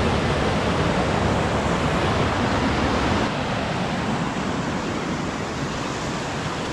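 Steady rushing of running water, with a low wind rumble on the microphone that eases about three seconds in.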